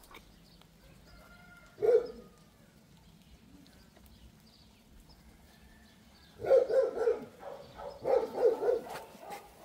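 Dog barking: a single bark about two seconds in, then two quick runs of several barks each near the end.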